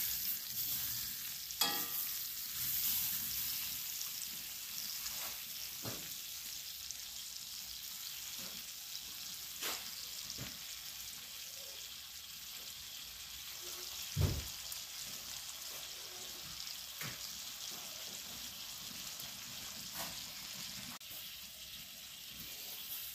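Steaks in butter and hot dogs sizzling in cast iron skillets on a wood cook stove, a steady hiss that is a little louder for the first few seconds. Occasional clicks of metal tongs against the pans, with one louder knock about fourteen seconds in.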